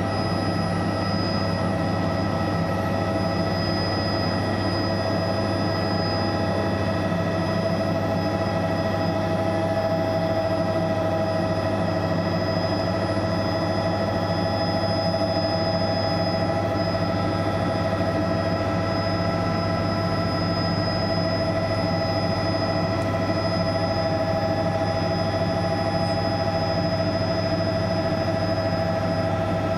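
Helicopter in flight heard from inside the cabin: a steady low drone with several steady whines over it, unchanging throughout.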